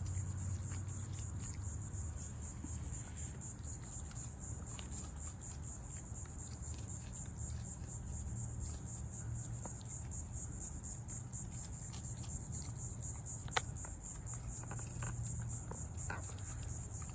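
Chorus of insects trilling, a continuous high, rapidly pulsing buzz, over a steady low hum. A single sharp click comes about thirteen seconds in.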